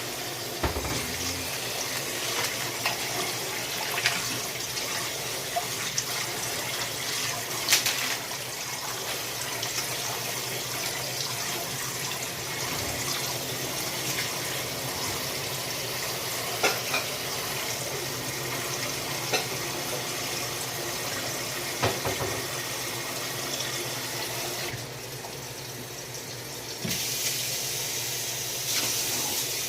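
Water running steadily from a tap into a sink, with scattered sharp clinks and knocks. The flow drops lower for about two seconds near the end, then picks up again.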